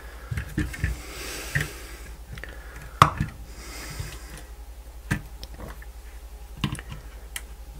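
Handling noises from the opened plastic multimeter being turned over on a desk: soft rustling and sliding, with a few sharp clicks and knocks, the loudest about three seconds in.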